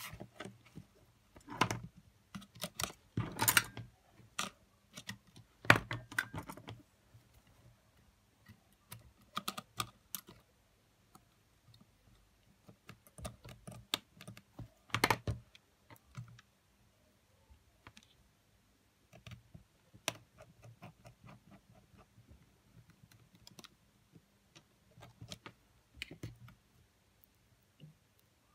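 Irregular small clicks and taps of a precision screwdriver and fingers working on the opened metal-and-plastic chassis of a Sony WM-FX811 cassette player as a replacement motor is fitted. The clicks come thickest in the first several seconds, with one louder knock about halfway, then thin out to light scattered ticks.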